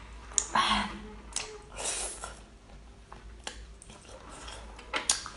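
Close-up wet mouth sounds of eating a small cooked octopus: squishy bites and chewing in short bursts, with a few sharp clicks.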